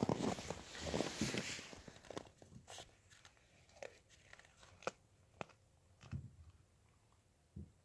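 A Siberian husky crunching and tearing at frozen raw chicken, dense crackling for about two seconds. Then come a few scattered sharp crunches and clicks.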